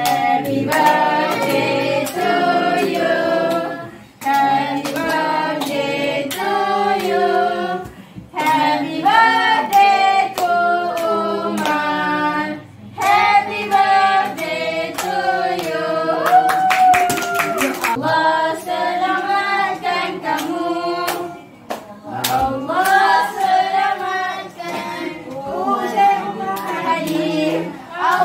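A small group of adults and children singing a birthday song together in several phrases, with hands clapping along.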